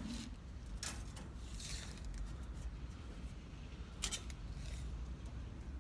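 Light hand work on a wooden chicken coop: a few sharp clicks, the clearest about a second in and about four seconds in, with a soft rustle between them.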